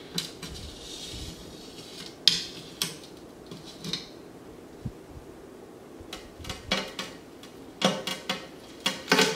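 Cured aquarium silicone seams tearing loose as a glass panel is slowly pried off a glass tank: irregular sharp snaps and crackles, coming closer together and louder near the end as the silicone lets go.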